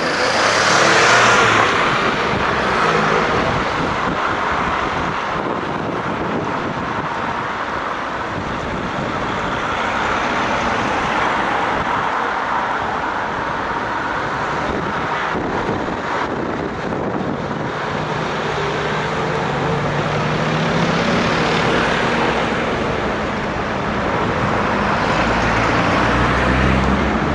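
Road traffic and heavy-haulage lorries' diesel engines running as the oversize load crawls through a junction, a steady rumble and hiss of vehicles. An engine drone becomes more prominent in the second half.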